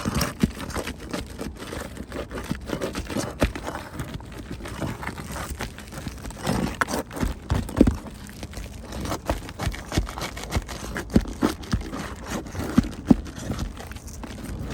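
Roofing tools prying up brittle fiberglass asphalt shingles: irregular cracks, scrapes and knocks as the seal strips break and the shingles give way.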